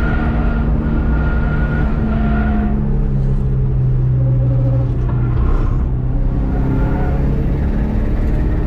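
Subaru EJ207 turbocharged flat-four in a GC8 Impreza running hard on track. The revs hold, fall away about three seconds in, then climb again from about six seconds as the car accelerates.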